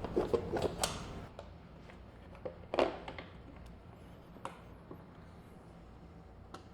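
Scattered clicks and knocks of hardware and tools being handled as a mount is bolted back onto a motorcycle. Several come in the first second and the sharpest about three seconds in.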